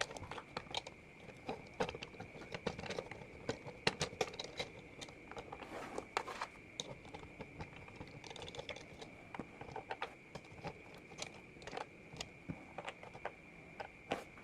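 Irregular clicks and taps of plastic toy parts being handled and snapped on an Optimus Prime transforming toy, with a faint steady high tone underneath.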